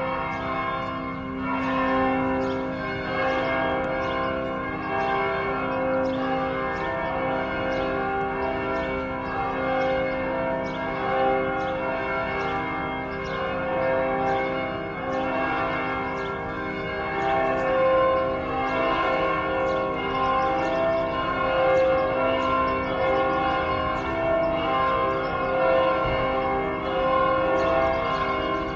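Church bells ringing in a continuous peal: strike follows strike in quick succession, and each tone rings on under the next.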